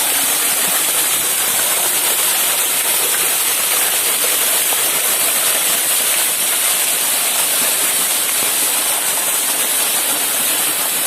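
Waterfall's water splashing and rushing in a steady hiss; the falls are running low, with only a little water coming down.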